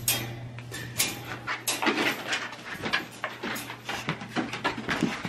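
Pet dogs vocalising softly and moving about, with many short clicks and rustles throughout.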